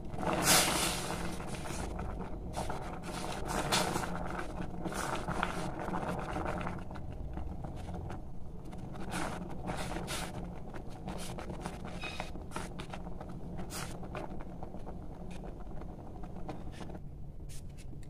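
Noodles boiling in a stainless-steel pot on a gas stove, stirred and separated with tongs: a steady low rumble of burner and boiling water, with scattered clicks and scrapes of the tongs against the pot, loudest about half a second in.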